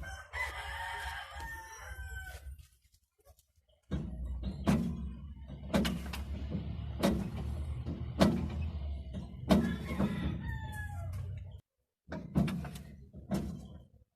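A rooster crowing twice, once at the start and again about ten seconds in. In between, a series of sharp knocks about a second apart over a low rumble; these knocks are the loudest sounds.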